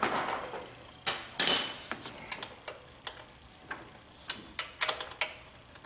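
A metal wrench or socket clinking and clicking on golf cart battery terminal bolts as they are snugged down: irregular sharp metallic clicks, a few in quick succession near the end.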